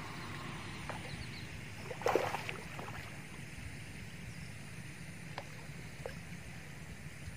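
Water splashing at the bank as a hooked rohu is pulled in on a hand line, with the loudest splash about two seconds in and a few faint ticks later, over a steady background hiss.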